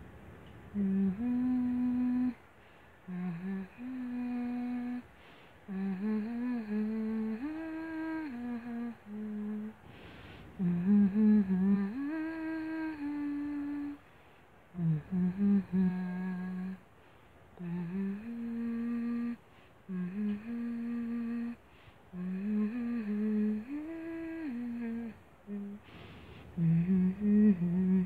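A person humming a slow lullaby melody to lull a kitten to sleep, in short phrases with brief pauses between them.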